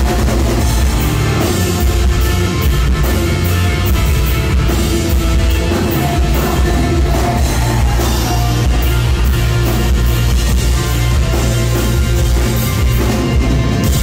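Live rock band playing loud: electric guitars, bass and a drum kit, heard from in front of the stage.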